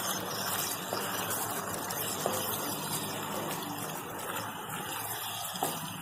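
Wooden spatula stirring macaroni in a creamy sauce in a nonstick pan over a steady rushing hiss with a low hum, with a couple of soft knocks of the spatula against the pan.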